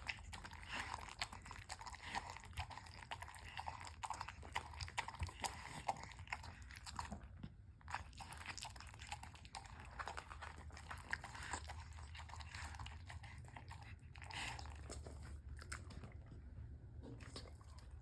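An old bull terrier eating, crunching and chewing its food in many quick crunches. There is a brief pause about eight seconds in, and the crunches thin out and grow quieter near the end.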